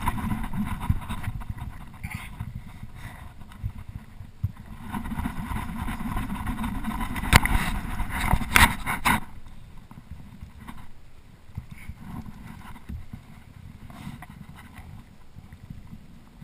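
Wind buffeting the microphone as a low rumble, strongest in the first nine seconds and then easing, while a fish is played from the kayak. Two sharp knocks come about seven and eight and a half seconds in.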